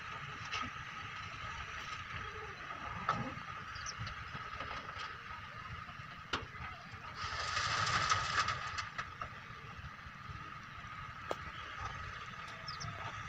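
Excavator engine running steadily with a constant whine over a low rumble, broken by a few sharp knocks, and a louder rushing swell about seven to nine seconds in.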